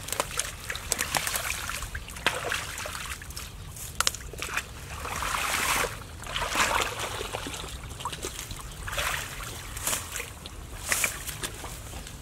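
Matted grass, vines and roots being torn from a canal bank by hand, with rustling and snapping and muddy water sloshing and dripping around a man wading in the shallows.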